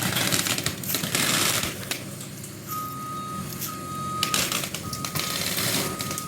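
Excavator engine running under load while the building being demolished crunches and cracks. From a little before halfway, a backup-alarm beep repeats about once a second.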